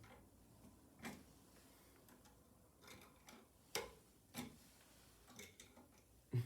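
Faint, irregular clicks and taps of a screwdriver and stiff wire being worked against a wall outlet's screw terminal, about half a dozen in all.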